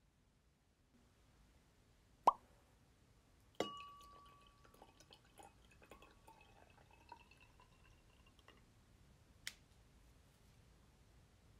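Juice poured from a glass bottle into a stemmed glass. A sharp click about two seconds in, then a knock as the pour starts, followed by a few seconds of splashing and gurgling with a faint ringing from the glass. One more light click comes near the end.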